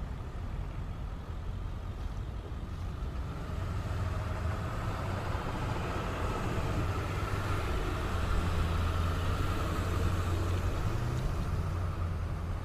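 Ceccato CSA-20 rotary screw air compressor running, a steady low hum with a higher whine above it that grows louder over the first several seconds.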